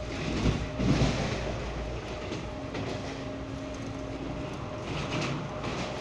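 Passenger train running at high speed, heard from inside a coach: a steady rumble with wheels clattering over the rails, loudest in a burst of clatter about a second in.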